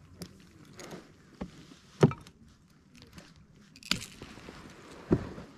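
A few sharp clicks and knocks over a quiet background, the loudest about two seconds in and two more near four and five seconds, from pliers and a tangle of snagged lures and fishing line being handled.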